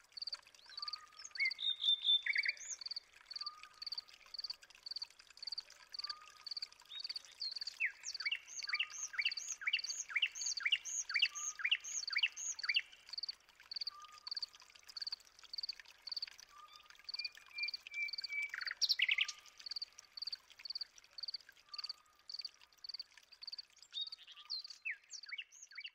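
A chorus of night creatures: a high, even chirp about twice a second throughout, and under it a short lower call repeating every couple of seconds. A bird sings a burst of quick rising notes about eight to thirteen seconds in, with a few other sweeping calls.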